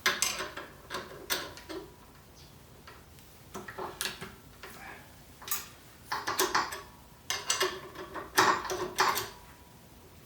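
Small metal tools clinking and rattling as they are handled at a milling machine, in irregular bursts of clicks and clatter with a louder cluster near the end.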